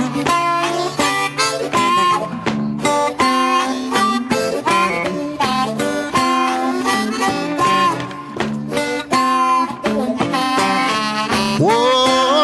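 Blues harmonica playing short, repeated notes in a steady rhythm over a guitar accompaniment; near the end a long note slides upward.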